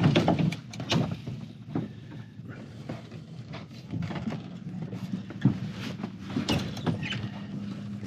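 Wind gusting over the microphone with irregular flapping and knocking from the sail and rigging, loudest in the first second. Under it runs a steady low engine drone, clearer in the second half, from the outboard on the tender towing the boat.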